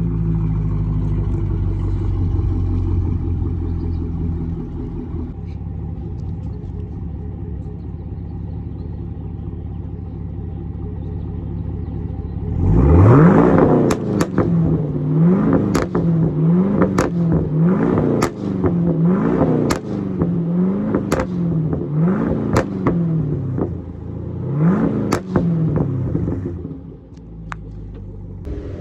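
2014 Chevrolet Camaro SS's 6.2-litre V8 idling steadily, then, about halfway through, revved in a string of quick throttle blips, each falling off with sharp pops and crackles from the exhaust, the effect of a custom burble tune. It settles back to idle near the end.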